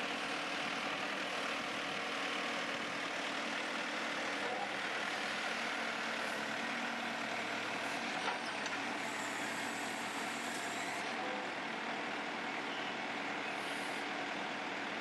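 2002 JCB 3CX backhoe loader's diesel engine running steadily, with one short click about eight seconds in.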